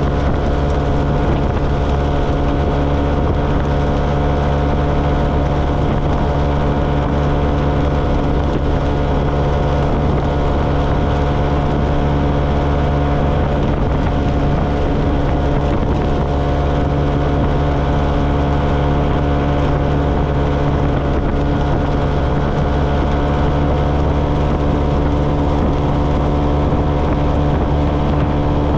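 A 125 cc motorcycle engine running at a steady cruising speed, with a continuous drone and no revving changes, mixed with wind and road noise.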